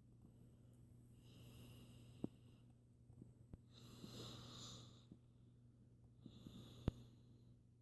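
Faint, noisy breathing of a sleeping toddler with reactive airway disease (RAD): three breaths, one about every two and a half seconds, each heard mostly as a high hiss, over a low steady hum. A few small clicks, the sharpest near the end.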